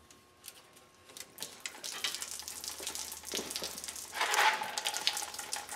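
Fuel pouring out of the disconnected fuel filter outlet on a 5.3 V8 Tahoe's fuel line and splashing below. It starts about two seconds in and gets louder about four seconds in.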